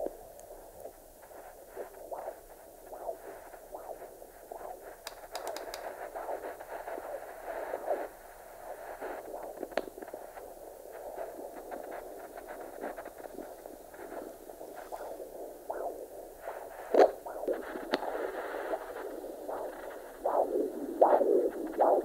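Handheld fetal Doppler's loudspeaker giving a scratchy static hiss with scraping crackles as the gel-covered probe is slid over the abdomen in search of the mother's pulse. Near the end louder pulsing whooshes come in as the probe picks up the maternal blood flow.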